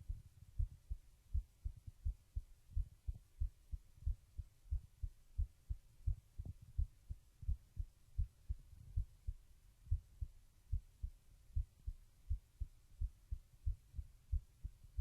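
A teenage boy's heartbeat, heard at rest while lying down: a steady, regular rhythm of low, muffled thumps, with a faint hum underneath.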